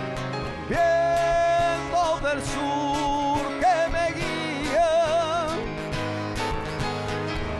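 Male rock singer singing long held notes with vibrato, over keyboard accompaniment, in a stripped-down acoustic arrangement.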